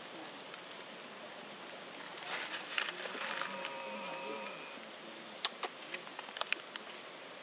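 A flying insect buzzing close by for a couple of seconds in the middle, followed by a run of sharp clicks and crackles near the end.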